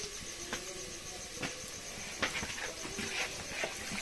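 A pot of chicken gravy cooking over a fire: a faint steady sizzle with a handful of light clicks and taps, likely the spoon on the pot as masala is added and stirred in.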